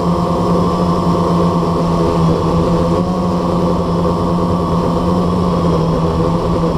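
Blade 350QX quadcopter's four brushless motors and propellers humming at a steady pitch while it hovers, heard from the camera mounted on the quadcopter itself.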